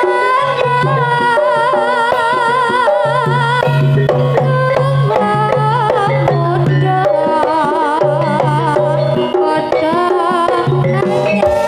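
Javanese campursari music: a singer's wavering, vibrato-laden melody over hand drums and a low repeated bass line.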